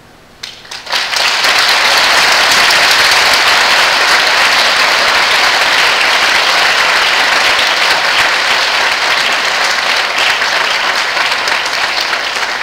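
Audience applauding: a few scattered claps about half a second in, building within a second into full, steady applause.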